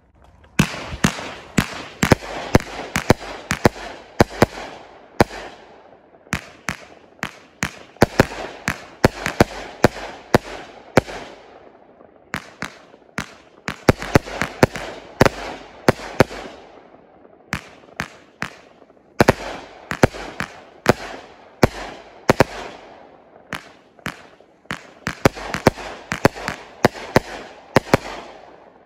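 Brothers Pyrotechnics 'Inside Job' 49-shot 500-gram firework cake firing. Sharp bangs come several a second in volleys with short lulls between them, and a hiss fades after each volley.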